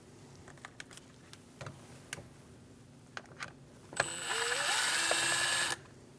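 A few light clicks of handling, then about four seconds in a power driver spins for under two seconds, its whir rising in pitch and then holding before stopping abruptly, as it backs out a T20 screw.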